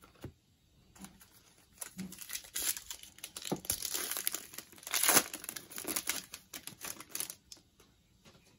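A trading-card pack's foil wrapper being torn open and crinkled by hand, an irregular crackling that is busiest and loudest in the middle and stops about a second before the end.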